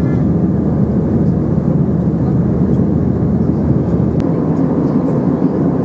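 Steady cabin noise of an Airbus A320 in flight, heard from inside the cabin: a low, even rumble of engines and rushing air. A single faint click comes about four seconds in.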